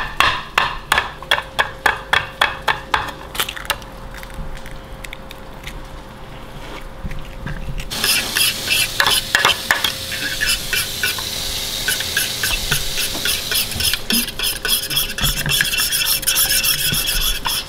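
A fork beating eggs in a bowl: quick regular clicks of the fork against the bowl, about three a second. About halfway through, the sizzle of meat patties frying in a pan joins the clicking as a steady hiss.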